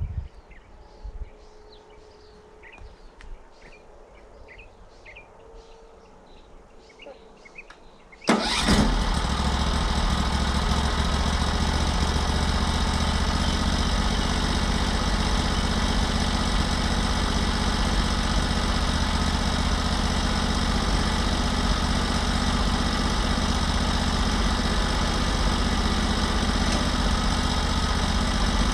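Quiet with a few short faint chirps, then about eight seconds in the sawmill's engine starts suddenly and runs steadily.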